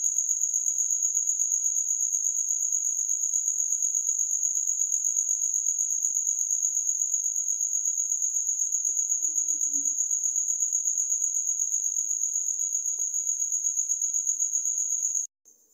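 Cricket chirping: one steady, high-pitched trill pulsing several times a second, which cuts off suddenly near the end.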